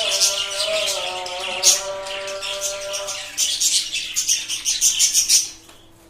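Caged budgerigars chattering with rapid, dense chirps over a steady held tone that steps down in pitch about three seconds in. The chirping stops shortly before the end.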